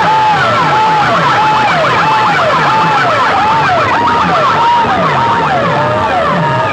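Loud electronic siren effect played over big DJ sound-box speakers: overlapping whooping tones that rise and fall about one and a half times a second, over a pulsing bass.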